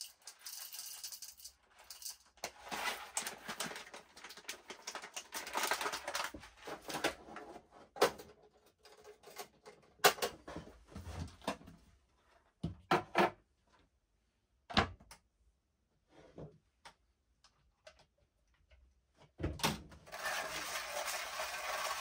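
Manual coffee grinder and coffee beans: a dense, crackly rattle for about the first ten seconds, then scattered sharp clicks and knocks with quiet gaps between them. About two seconds before the end a steady grinding noise starts as the hand grinder is cranked.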